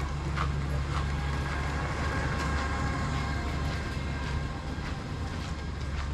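Steady low mechanical rumble, like a motor running, with a few scattered light clicks.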